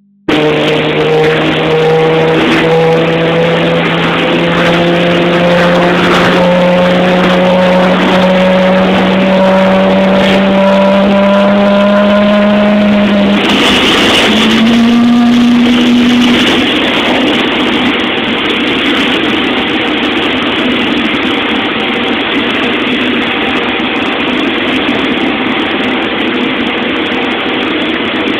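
GE90 turbofan on a Boeing 777 starting up: a whine that rises slowly in pitch for about thirteen seconds as the engine spools up, then about halfway through the whine breaks off and a steady rushing roar takes over as the engine comes up to idle.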